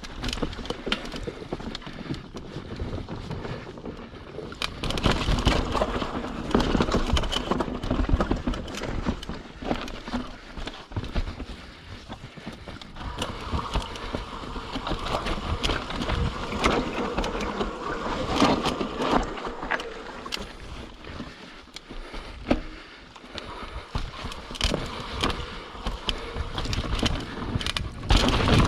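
YT Capra 29 mountain bike riding down a rough dirt trail: tyres rolling over the ground with frequent knocks and rattles from the bike over bumps, varying in loudness throughout.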